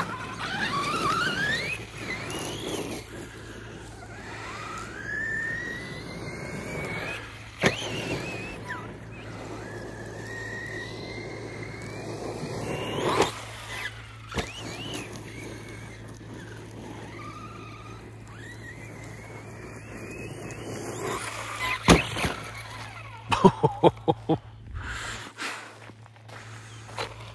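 Team Associated Rival MT8 RC monster truck running on 6S: its brushless electric motor whines up and down in pitch as the throttle is worked, with a few sharp knocks of hard landings. Near the end comes a quick run of knocks close together.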